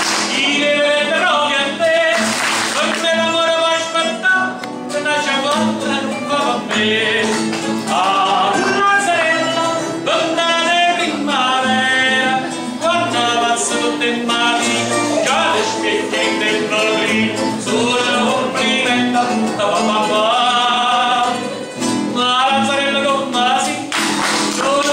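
Live male vocalist singing a Neapolitan song, accompanied by a plucked mandolin and an acoustic guitar.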